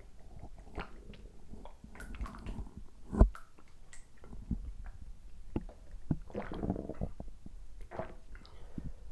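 Stomach gurgling with small clicks and sloshes as water is drunk shortly after a gastroscopy, with a sharp knock about three seconds in.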